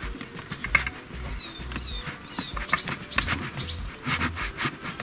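A small bird chirping, a quick run of short high chirps from about a second in to past the middle, over scattered light clicks and knocks as the steel seat stand is handled on the boat.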